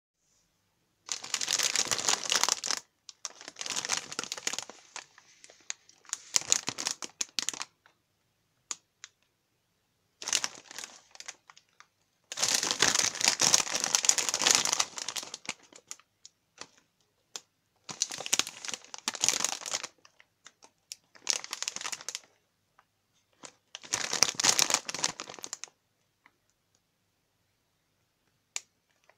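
A shiny foil snack bag crinkling as it is handled and turned over. It comes in about eight bursts of one to three seconds, with silent gaps between them.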